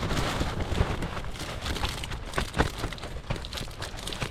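Gusty wind buffeting, with scattered crackles and taps through the rough, steady noise.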